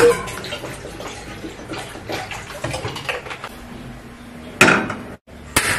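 Water being scooped from a plastic jerry can with a stainless steel saucepan: splashing and pouring with the pan knocking against the can, then two loud clanks of the pan near the end.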